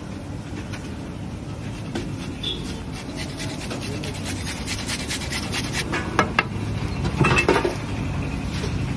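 Small crackles and clicks from a hot dosa griddle as toppings are scattered over the dosas, over a steady low hum of street traffic. A few louder clatters come around six to seven and a half seconds in.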